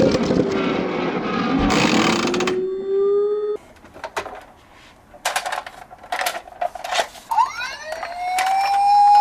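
Toy emergency-vehicle siren wailing, starting about seven seconds in with a rising pitch that then holds. Before it come a few seconds of scattered sharp clicks and knocks. The opening seconds are a dense noisy sound with slow pitch glides that cuts off suddenly.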